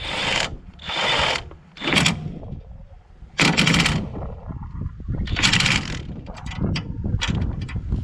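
Impact wrench run in about five short bursts of under a second each, driving bolts home, with small metallic clicks between the bursts.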